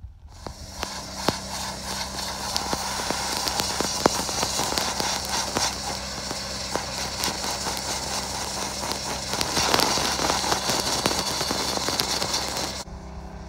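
Sandblaster blasting abrasive grit onto a steel truck frame: a loud, even hiss of air and grit, crackling as the grit strikes the metal, over a steady low hum. The blast cuts off shortly before the end while the hum carries on.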